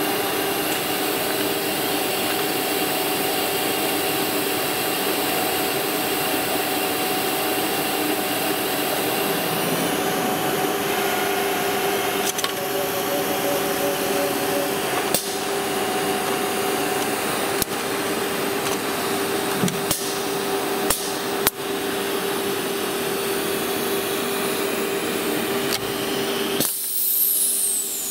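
HOMAG Venture 20 CNC router machining centre running: a steady machine hum with a held tone, broken by a few sharp clacks from the moving head. Near the end the hum drops away and a high whistle falls in pitch.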